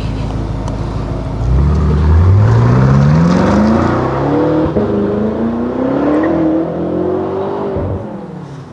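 BMW F10 M5's twin-turbo V8 accelerating hard from a standstill. A low rumble gives way to an exhaust note that climbs steeply, drops at an upshift about halfway through, and climbs again. It then fades as the car drives away.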